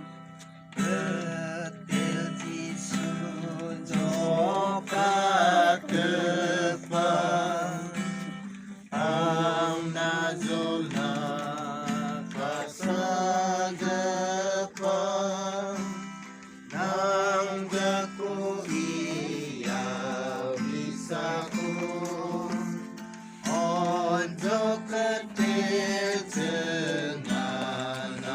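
A song: a voice singing in phrases of a few seconds over guitar accompaniment.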